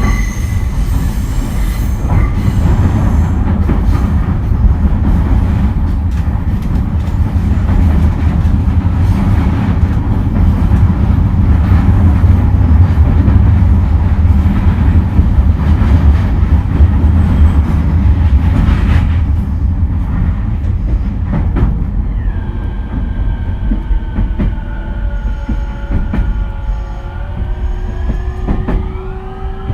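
Onboard running sound of a JR East E231-series electric train: a heavy rumble of wheels on rail at speed. About twenty seconds in, the rumble eases and the VVVF traction inverter's whine comes in as several tones that fall slowly in pitch, with a few rising near the end.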